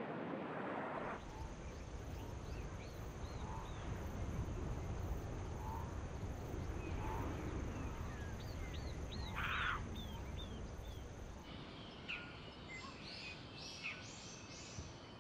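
Surf washing on a beach for about the first second, then outdoor ambience of many birds chirping and calling over a low rumble. A steady high whine runs under the birds and stops about three-quarters of the way through, and the bird calls grow busier near the end.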